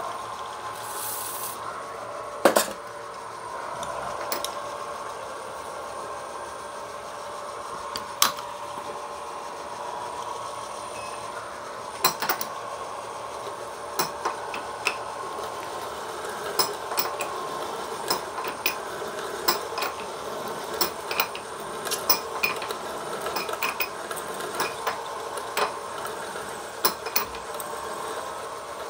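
A machine spindle drives a helicoil tapping drill into an aluminium motorcycle crankcase casting, running with a steady hum. Sharp ticks and scrapes from the cutting come only now and then at first, and often from about halfway on.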